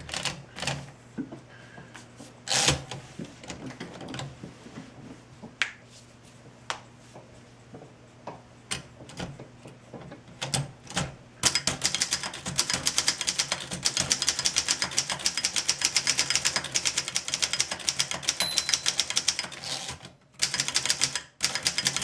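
1927 Corona No. 4 portable typewriter, freshly serviced and working smoothly. For about the first half there are only scattered clicks and knocks while the paper is set at the platen. Then comes fast, continuous typing, the typebars striking many times a second, with a couple of short breaks near the end.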